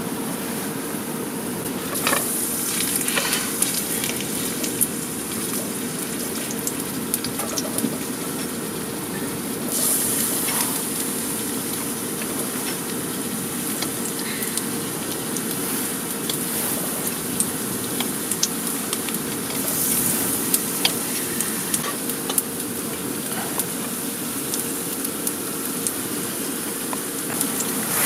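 Garlic sizzling in olive oil in the cups of a cast-iron takoyaki pan on an electric heater: ajillo frying steadily with small pops and crackles, over a faint steady hum.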